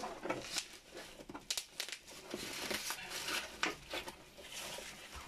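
Bubble wrap crinkling and rustling with irregular crackles as it is handled and pulled off a cardboard parcel.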